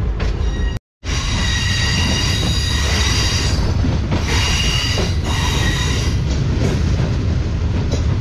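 Passenger train running on the track, a steady rumble with a high-pitched squeal of steel wheels against the rails that swells and fades. The sound cuts out completely for a moment just under a second in.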